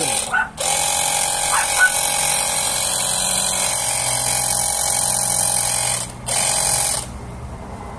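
Delton cordless high-pressure water gun's battery pump running with a steady whine and the hiss of its spray through a spreading nozzle. It cuts out briefly just after the start and again about six seconds in, then stops about seven seconds in as the trigger is released.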